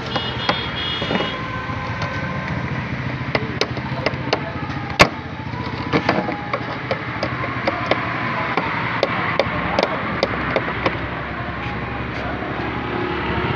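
Irregular light clicks and knocks over a steady background noise, with one sharper knock about five seconds in.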